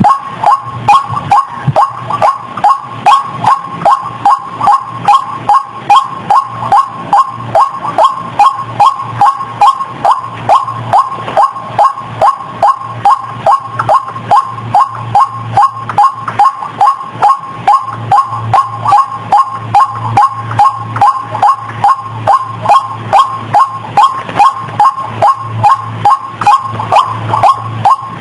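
White-breasted waterhen calls repeated in a steady, unbroken rhythm, about two a second. This is a recorded lure call, played to draw the birds in.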